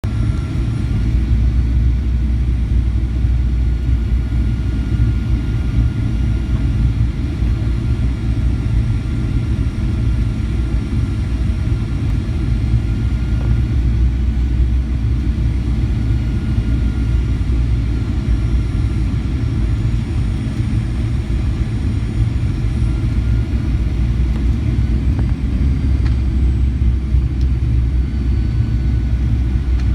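Cabin noise inside a Boeing 737-900ER in flight: a steady low rumble of its CFM56-7B engines and airflow over the fuselage, with a faint steady whine above it.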